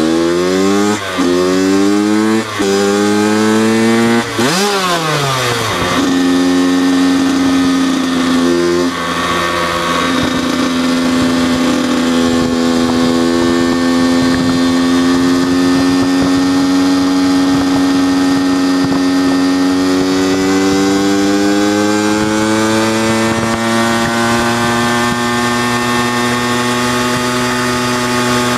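Kawasaki KX85 two-stroke motocross bike's engine being ridden hard. In the first four seconds it revs up through the gears, with a short break in the sound at each shift. About five seconds in the pitch falls steeply, then the bike settles into a steady cruise that climbs gently in pitch later on.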